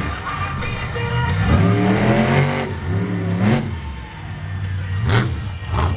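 Monster truck engine revving hard during a freestyle run, its pitch climbing and falling in repeated surges. Two sharp cracks come about five seconds in.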